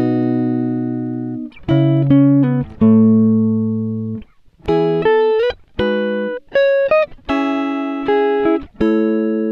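Background music: a plucked-string tune of sharply struck notes and chords, each ringing and then fading.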